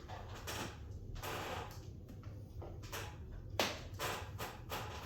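A squeegee being worked over wet window tint film, a string of short swishing strokes pushing water out from under the film, the sharpest stroke about three and a half seconds in.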